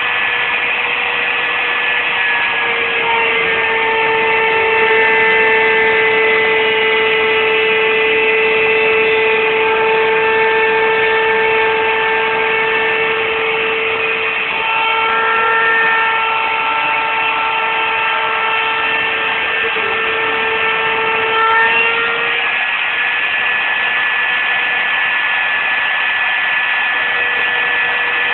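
CNC router running: a steady mechanical hiss with several whining tones that change pitch about 3 seconds in, break briefly around 15 seconds and shift back about 22 seconds in.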